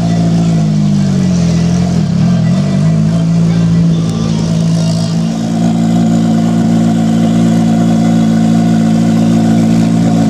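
A 700 hp Mitsubishi Lancer Evolution VIII MR FQ-320's turbocharged 4G63 inline-four idling loudly through a side-pipe exhaust. It is a steady, deep drone whose pitch wavers and dips briefly about two seconds in, then settles.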